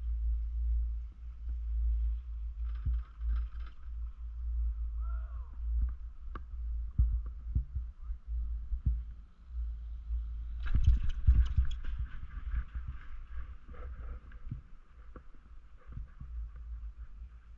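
Ride noise on a Doppelmayr CTEC fixed-grip triple chairlift: heavy wind rumble on the microphone over a thin steady mechanical hum, with scattered clicks and knocks from the chair and rope. A louder clattering burst comes a little over ten seconds in.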